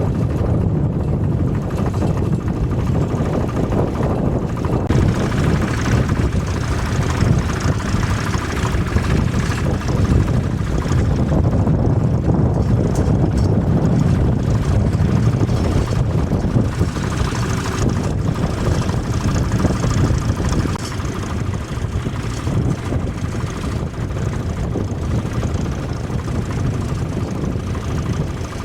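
Vintage tractor engine running steadily, with wind buffeting the microphone.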